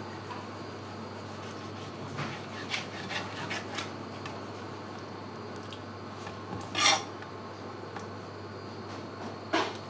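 Long kitchen knife scraping and tapping on a wooden cutting board as raw fish fillets are skinned and sliced: a few soft scrapes, a sharper scrape about seven seconds in and another near the end, over a steady low hum.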